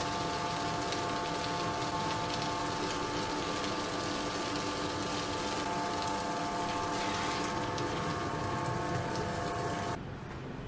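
Tabletop wet grinder running steadily, its motor humming under the wet swish of the stone roller churning soaked urad dal into batter. The sound cuts off near the end.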